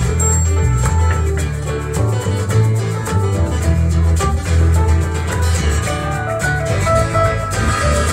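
Live band playing an instrumental passage: strummed and picked acoustic guitar, a second guitar and a keyboard over a steady bass line.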